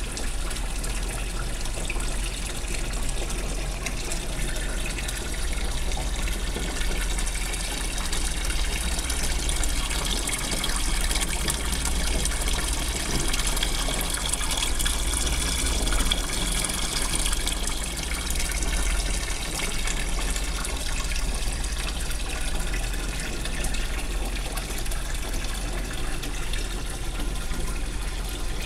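Wishing-well fountain running: a steady stream of water pours from its overflowing bucket and splashes into the foamy basin below.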